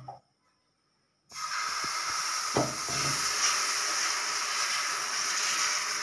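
Batter sizzling on a hot dosa griddle as it is poured and spread with a ladle: a steady hiss that starts suddenly about a second in, with a soft knock a little later.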